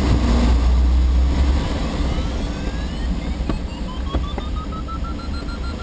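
Airflow rushing loudly around the DG-1000 glider's cockpit during an aerobatic manoeuvre, with a heavy low rumble that eases about one and a half seconds in. A beeping variometer tone glides up in pitch and then slowly falls back as the glider climbs.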